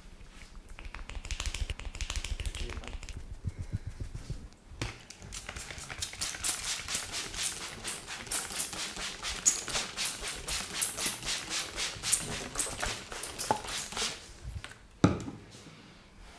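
Hand massage with fast, rhythmic slapping and tapping on the body, about four strikes a second, and one sharp, louder smack near the end.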